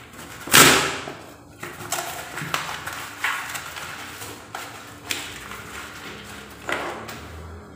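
Cardboard being torn by hand: a loud rip about half a second in, then a run of shorter tears and rustles.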